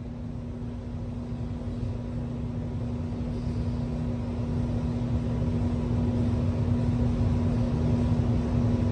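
Steady mechanical hum with a low rumble that grows gradually louder.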